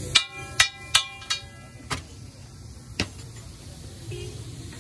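Metal spatula striking metal cookware: four quick ringing clangs in the first second and a half, then two more single clangs about a second apart, over a steady low background rumble.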